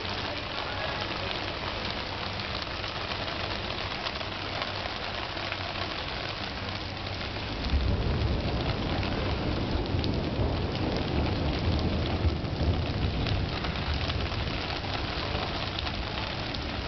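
Steady rain falling on wet paving stones, an even hiss of drops. About halfway through a low rumble joins in and the sound grows somewhat louder.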